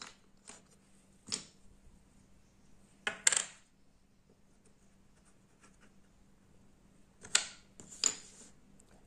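Wooden jigsaw puzzle pieces clacking against each other and on a wooden tabletop as they are picked up and fitted together: a few sharp knocks spread through, some in quick pairs.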